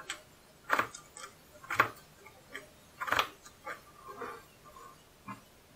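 Small kitchen knife cutting peeled raw potatoes into pieces on a plastic cutting board: about half a dozen sharp, irregularly spaced knocks of the blade through the potato onto the board.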